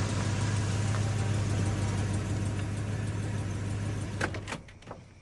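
A car's engine and tyre noise as the car pulls up to a stop, a steady low hum that fades out about four seconds in, followed by a few short clicks.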